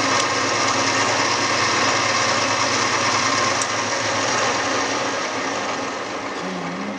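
1993 Standard Modern 11 x 20 engine lathe running steadily with its 3-jaw chuck spinning at a high spindle speed in the high range. About two thirds of the way through, the sound begins to fade gradually as the spindle winds down.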